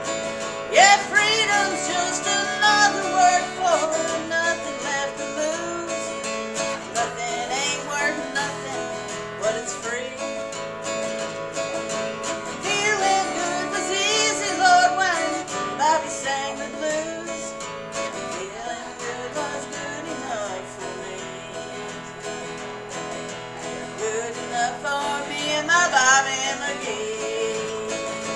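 Acoustic guitar strummed steadily in a country-folk rhythm. A woman's voice sings over it in several stretches without clear words.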